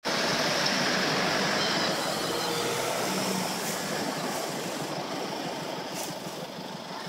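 Steady city street noise, a continuous rush with no clear music in it, easing slightly quieter toward the end.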